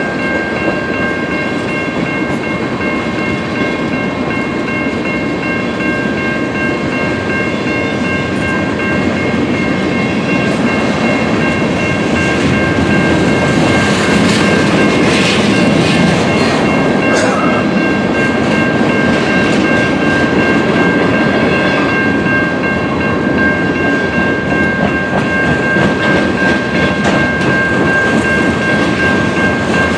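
Freight cars of a manifest train (tank cars and covered hoppers) rolling steadily past, wheels clacking over the rail joints with a constant rumble. Steady high-pitched ringing tones run over it, and the rumble grows a little louder partway through.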